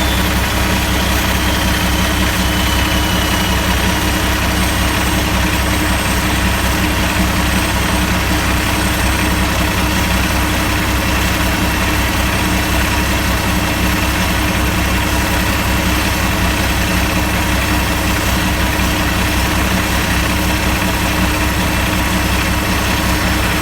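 Diesel engine running steadily at idle during a parked DPF regeneration, with a faint high whine falling in pitch in the first few seconds.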